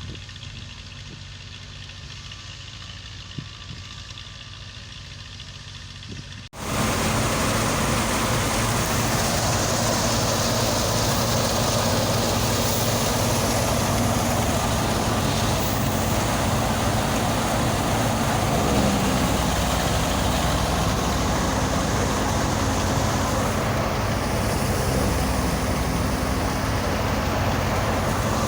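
Harvest machinery engine running steadily. About six and a half seconds in, the sound cuts abruptly to a much louder machine running at a steady pace, with a low engine hum under a dense rushing noise.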